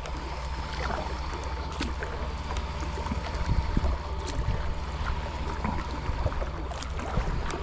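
Kayak moving on calm water, with small splashes and light knocks against the hull over steady wind rumble on the microphone.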